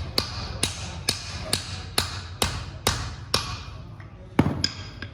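Hand hammer striking metal in a steady rhythm, about two blows a second, eight ringing strikes that grow slowly fainter, then one heavier knock near the end.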